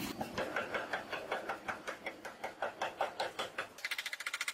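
Power hammer striking in a steady rhythm of about five blows a second, then switching near the end to faster, lighter blows of about ten a second.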